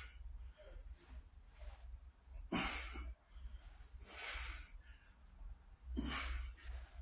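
A man breathing hard under exertion: three short, forceful, noisy exhalations, about one every second and a half, over a steady low hum.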